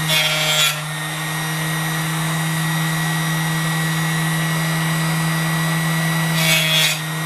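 Small bench-top power saw running with a steady hum while its blade cuts through brass tubing. A short high scraping cut comes at the start and another near the end.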